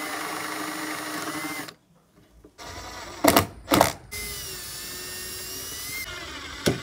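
Cordless drill running steadily as a round boring bit cuts a hole through a wooden plank, stopping after about two seconds. Then come two sharp knocks, and the drill runs again for about two seconds, pressed against the plank on the boat's transom, with another knock near the end.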